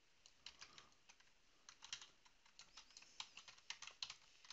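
Faint typing on a computer keyboard: irregular runs of short key clicks.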